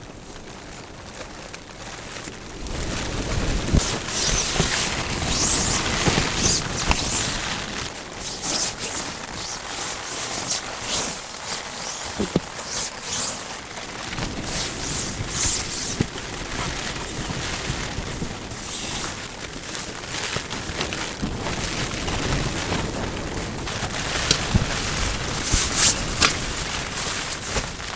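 Storm wind gusting and buffeting the microphone, with rain and repeated sharp snaps of tent fabric in the gusts.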